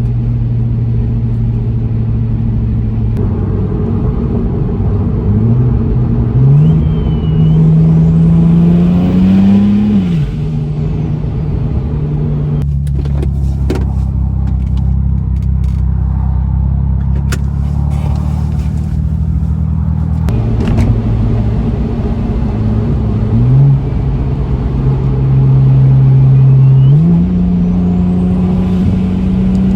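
BMW 335i's N54 twin-turbo straight-six running under way, its pitch climbing as it accelerates twice, with a sharp drop after the first climb and a steadier, lower drone in between.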